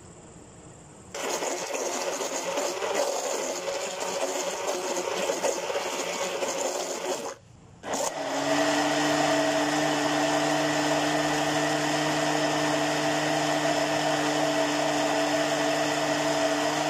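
Countertop blender crushing Oreo biscuits in milk. It starts about a second in with an uneven whir as the biscuits break up, stops briefly near the middle, then runs again with a steady, pitched whine as it spins the now-smooth batter.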